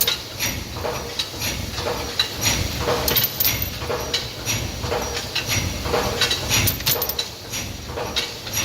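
Five-station cold-heading bolt former (Yeswin YBF19B5S) running in production, its press strokes giving a steady clanking rhythm over a low mechanical rumble.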